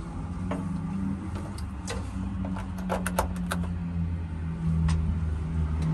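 A low steady hum that slowly grows louder, with a scatter of short light clicks and taps from handling test-light leads and wiring.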